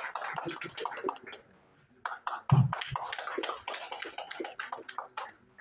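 Scattered clapping from a small group of people. It breaks off briefly about a second and a half in, then picks up again, with one heavy thump partway through.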